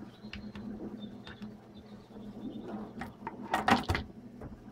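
Hands opening a mailed package: scattered scrapes and clicks of handled packaging, with a loud cluster of them about three and a half seconds in.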